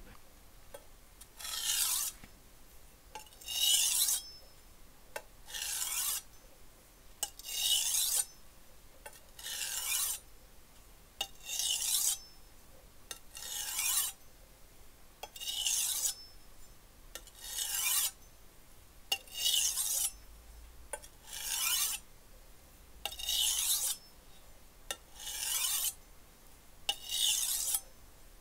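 A Wusthof chef's knife drawn heel to tip across a Kramer glass whetstone in single sharpening strokes. Each stroke is a short gritty scrape of under a second, repeating about every two seconds, about fourteen times, with faint clicks in between.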